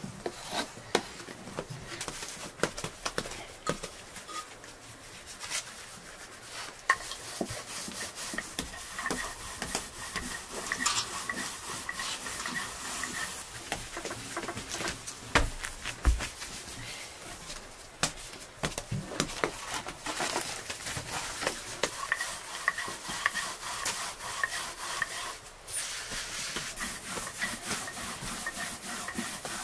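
Bread dough being handled by hand: soft rubbing, patting and tapping of dough on a floured wooden board, with one heavier thump about halfway through.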